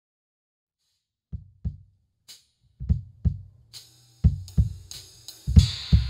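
Drum kit being played: a bass drum pattern starts a little over a second in, and cymbal and hi-hat strokes join past the halfway point to fill out the groove.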